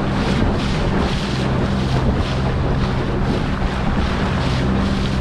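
Wind buffeting the microphone on a small aluminium boat at sea, with water washing against the hull. A low, steady engine hum runs underneath.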